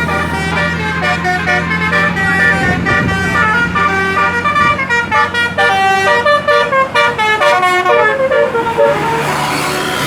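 A bus's Basuri 'telolet' multi-tone melody horn playing a tune of quick stepping notes for about eight seconds, over the steady low running of the bus engine, which is left on its own near the end.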